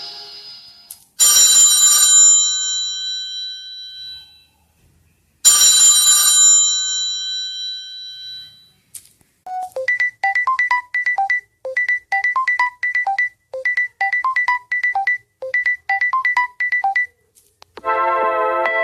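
Samsung Galaxy S25 Ultra ringtones and notification sounds played one after another: two bright bell-like chimes about four seconds apart, each ringing out for a few seconds, then a quick melodic pattern of short electronic beeps looping about five times. Near the end another ringtone melody begins.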